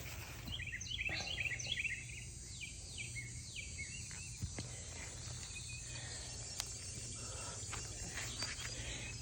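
Outdoor ambience: a bird sings a run of quick falling notes in the first few seconds over a steady low hum, with a few faint clicks later on.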